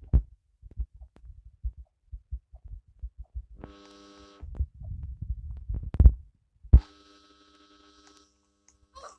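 Close, soft thumps and taps at an irregular pace, one sharper knock about six seconds in, and two steady buzzing tones, one of about a second near the middle and a longer one just after the knock.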